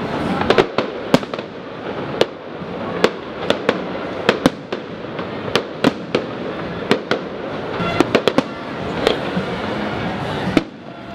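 Aerial fireworks display: shells bursting as many sharp, loud bangs in quick, irregular succession, some in clusters of two or three, over a continuous noisy background.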